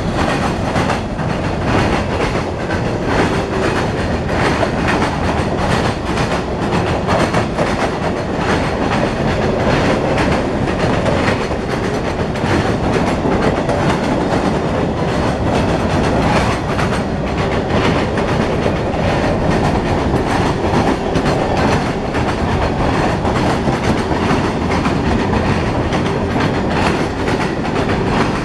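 Freight train of coil steel cars rolling past: a steady rumble of steel wheels on the rails with a continuous clickety-clack as the wheels pass.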